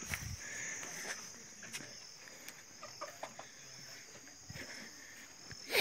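Insects chirring in a steady, high-pitched drone, with faint scattered clicks and a short louder burst of noise at the very end.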